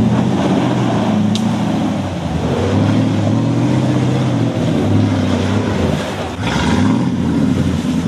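An off-road 4x4's engine revving under load, its pitch rising and falling. There is a brief burst of noise about six and a half seconds in.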